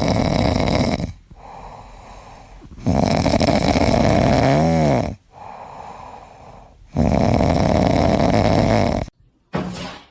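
Heavy snoring: three long, loud rasping breaths about four seconds apart, with quieter breathing between them. A short wavering whistle sounds in the middle breath.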